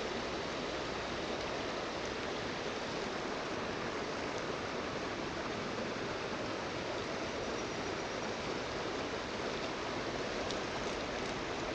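Steady rush of fast-flowing river water, an even hiss with no change in level.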